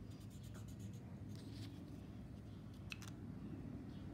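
Felt-tip marker rubbing back and forth on paper in quick, even strokes that stop under a second in. A few lighter scrapes and a small click follow, and a sharp click comes right at the end.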